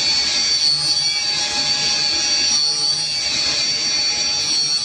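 Automated PCB assembly machine running with a steady, high-pitched whine.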